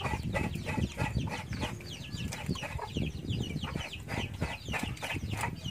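Chickens clucking, a rapid run of short falling calls.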